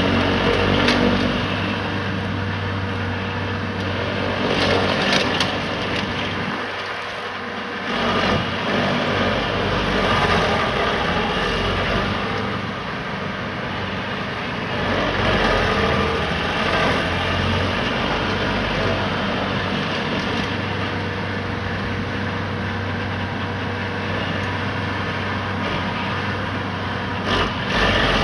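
Vermeer tracked stump grinder at work, its cutter wheel grinding into a tree stump: a steady engine drone under the rasping noise of wood being chewed up, swelling and easing as the wheel sweeps across the stump. The low engine hum dips briefly about seven seconds in.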